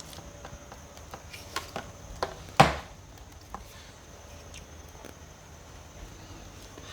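Light clicks and knocks of a scraping tool working the wax cappings off a wooden honeycomb frame, with one sharp, louder knock about two and a half seconds in.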